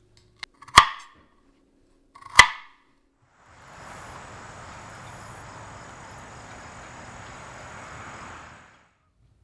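Two sharp chops of a kitchen knife on a cutting board, about a second and a half apart. Then a steady rush of a car driving along a road, with a thin high tone over it, fading out near the end.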